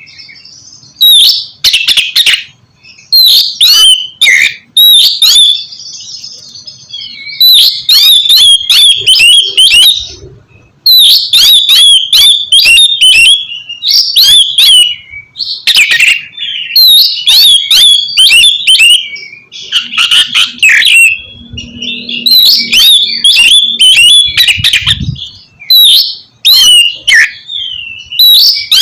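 Oriental magpie-robin (kacer) singing loudly in rapid phrases of sharp, shifting whistles and harsh clicking notes, with short pauses between phrases.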